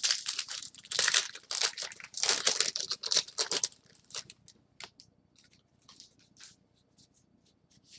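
Trading-card pack wrapper crinkling and tearing as it is handled and opened, a dense crackle for about the first three and a half seconds, then a few scattered light ticks and rustles as the cards are handled.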